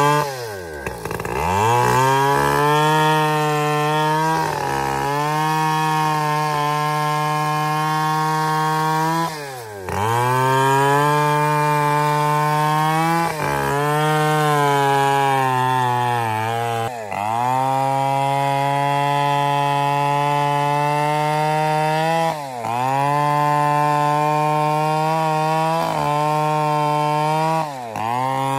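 Large two-stroke chainsaw with a long bar running at full throttle while cutting into the trunk of a dead, very old trembesi (rain tree). Its engine pitch dips sharply and picks straight back up several times as it bogs under load in the cut.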